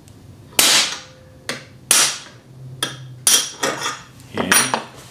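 A hammer tapping a punch against the exhaust valve stem of a Sheridan Streak pump-up air rifle: about six sharp metallic strikes, the one about half a second in the loudest and trailing off longest. Knocking the valve open dumps the air from 8 pumps, a check that the freshly resealed valve holds and releases a charge.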